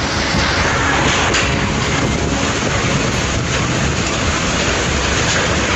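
Steady, loud rush of a rainstorm with strong wind buffeting the microphone.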